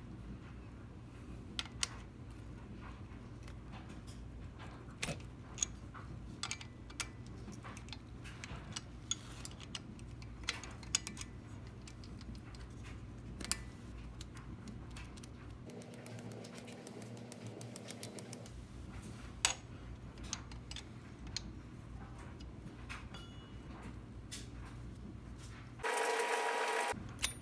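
Scattered light metallic clicks and ticks of a thin open-end wrench working the pushrod adjuster and lock nut on a Harley-Davidson Shovelhead engine, over a low steady hum. A brief, louder sound with a few steady tones comes about a second before the end.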